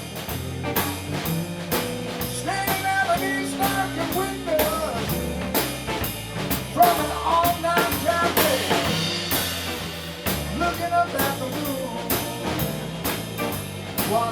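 Blues band playing an instrumental passage: drum kit keeping a steady beat under a bass line and a melodic lead line.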